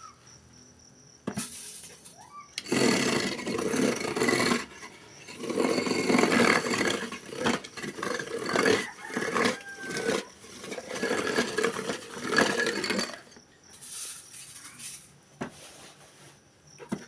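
Electric ice shaver running, its blades grinding blocks of frozen tea ice cream into shavings as the lever presses them down. The grinding starts about a second in, runs in long rough stretches for about ten seconds, then eases and comes back briefly near the end.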